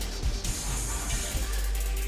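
Electronic dance music with a heavy, steady bass from a live concert recording.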